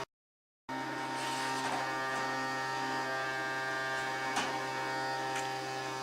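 Vacuum cleaner motor running steadily with an even buzzing drone, after the sound drops out completely for the first fraction of a second; a couple of faint clicks mid-way.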